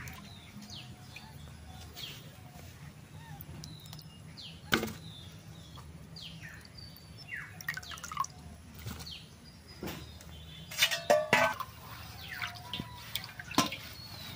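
Peeled pomelos being rinsed by hand in a steel bowl of water: water sloshing and dripping back into the bowl, with a few sharp splashes or knocks, a cluster of them about three-quarters of the way through.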